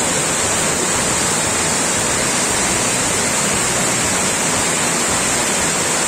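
A small mountain waterfall pouring over rocks into a rocky stream, making a steady, unbroken rush of water.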